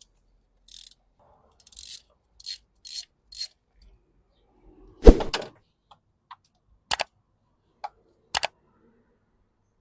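Hand tools working on the spark plugs: a ratchet and long spark plug socket make a few short ratcheting strokes. A heavy metal knock comes about five seconds in, then several sharp clicks.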